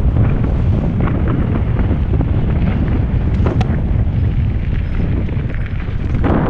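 Heavy wind buffeting on the microphone of a camera riding a mountain bike downhill, a loud steady rumble, with scattered clicks and rattles from the bike jolting over the dirt trail. A louder rush comes near the end.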